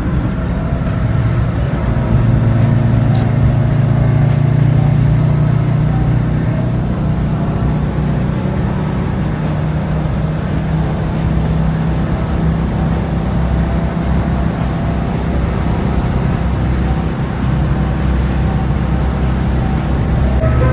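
Toyota Corolla DX engine and road noise heard from inside the cabin at highway speed: a steady low drone that grows louder about two seconds in.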